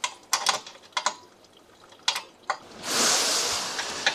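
A handful of sharp clicks and taps from working under the steel trailer frame, then about a second of rustling and scraping as a person slides out across a mat on grass.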